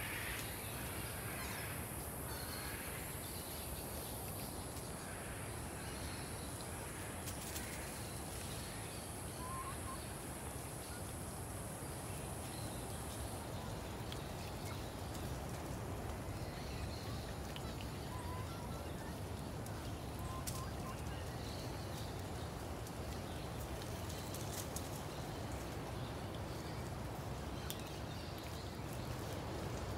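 Chickens clucking and calling faintly a few times, over a steady outdoor background with a high hiss and a low rumble.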